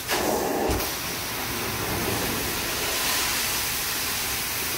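Truck-mounted hot-water extraction (steam) carpet cleaner's 14-inch four-jet titanium wand being drawn across carpet: a steady rushing hiss of hot water and air pulled up through the wand and hose, a little louder for about the first second.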